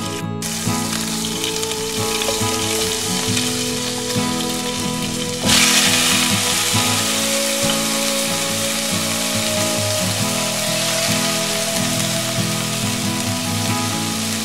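Hot butter and oil sizzling in a nonstick wok. About five and a half seconds in the sizzle turns suddenly louder and stays so, as raw chicken pieces fry in the hot fat. Background music plays underneath.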